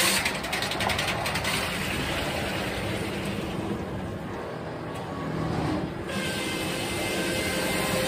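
Sawmill machinery around a 56-inch circular headsaw running steadily, with a quick clatter of knocks in the first second and a half. The high hiss of sawing drops away as the carriage moves between cuts, then about six seconds in it comes back abruptly as the blade bites into the log again.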